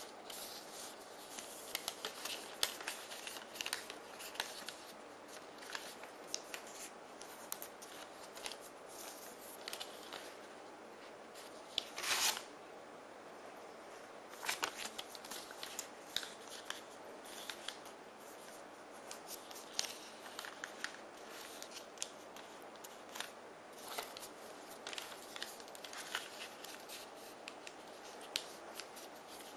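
Origami paper being folded and creased by hand: scattered crisp rustles and crackles, with a louder rustle about twelve seconds in.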